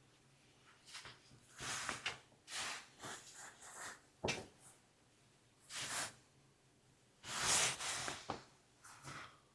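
Handling noise during the rethreading of an embroidery machine: short, irregular rustling swishes of thread being pulled, and one sharp click about four seconds in.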